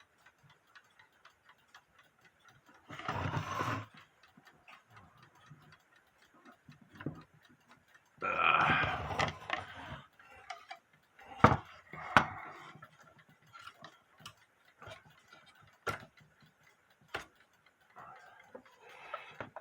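Old mechanical alarm clock ticking steadily, with handling noises over it: two spells of rustling and scraping, about three and eight seconds in, and a few sharp knocks.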